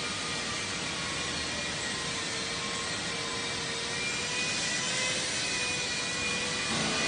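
Industrial machinery running steadily: an even whirring noise with a faint hum, getting a little louder about halfway through.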